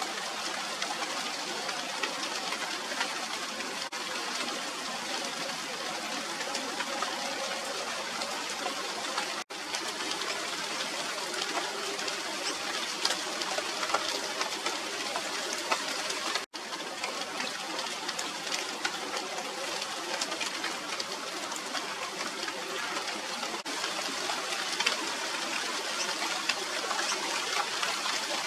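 Steady rain falling on a tree's leaves, with many small drop ticks. The sound cuts out for an instant twice.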